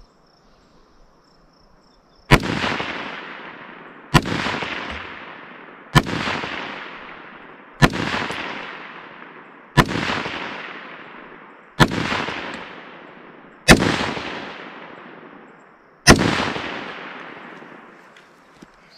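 Eight rifle shots from an AR-15-type rifle, fired in aimed rapid succession about one every two seconds, the first a little over two seconds in. Each sharp crack is followed by a long echo that dies away over more than a second.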